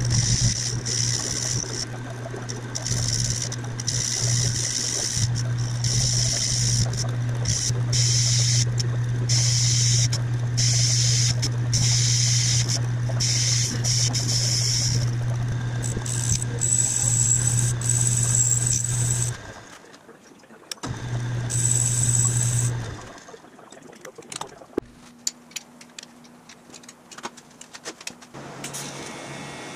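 Metal lathe running, turning a threaded pipe fitting, with a steady low motor hum and a higher hiss. The lathe stops about two-thirds through, runs again for about two seconds, and stops. Quieter scattered clicks and taps follow.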